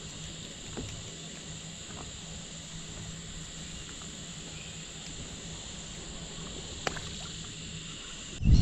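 Steady chorus of insects with a few faint clicks. Near the end a sudden loud low rumble cuts in.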